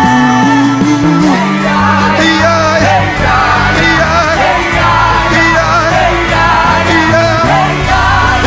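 A live church worship band playing an upbeat praise song, with steady bass notes and keyboard chords under voices singing and shouting.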